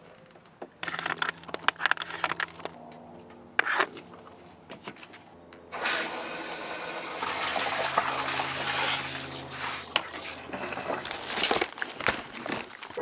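Water running from a dock spigot through a hose to fill a boat's freshwater tank, a steady rush that starts about six seconds in. Before it come a few clicks and knocks as the hose and spigot valve are handled, and near the end rustles and clicks.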